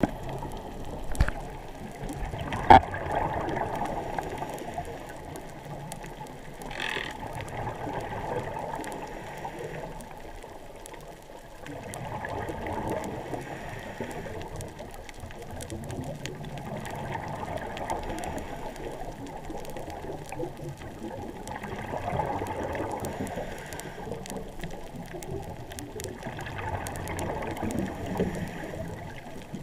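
Muffled underwater sound picked up inside an action-camera's waterproof housing: a steady wash of water noise that swells every four to five seconds. There are two sharp knocks in the first three seconds.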